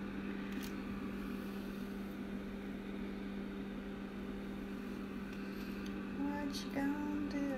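Overhead projector's cooling fan running with a steady hum. Near the end a voice comes in with a few short held notes.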